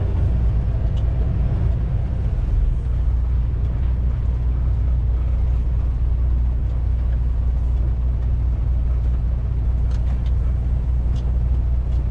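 Semi truck engine and tyre noise heard from inside the cab while driving: a steady low rumble.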